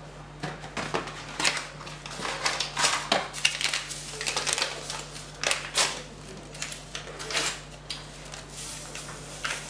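Irregular crinkling and light knocks as bowls and paper sachets of flan powder are handled on a kitchen counter.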